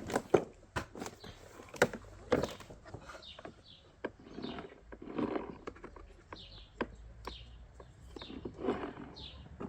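Irregular knocks and clicks, about a dozen, with some rustling in between: things being handled and knocked together.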